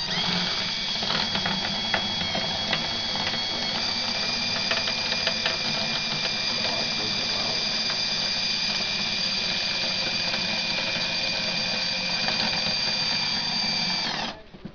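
Electric router running with a steady high-pitched whine as it cuts a test hole in the aluminium wing skin; the pitch steps up about four seconds in, with light scraping ticks from the cut. It stops abruptly near the end.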